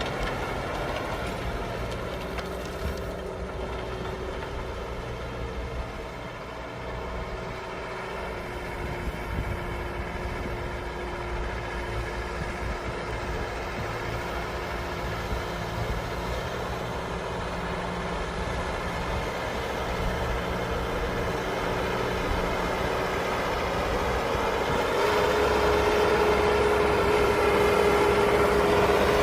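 LS farm tractor's engine running steadily, with a thin whine over the engine note. Over the last few seconds it grows louder and the whine steps up in pitch.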